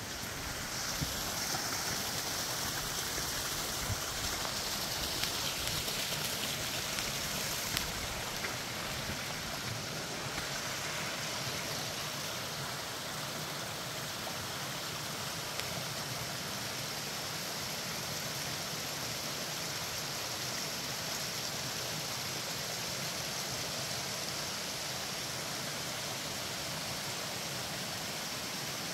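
Steady rush of water from a waterfall, a little louder in the first ten seconds, with a few light clicks near the start.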